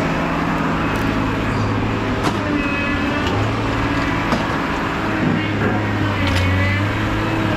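A large engine running steadily at idle, with scattered metal clanks and a few short squeals over it.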